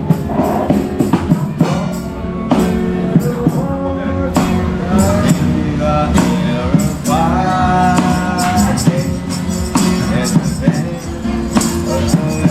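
Live serenade by street musicians: singing with a tambourine jingling in a quick steady rhythm over instrumental accompaniment.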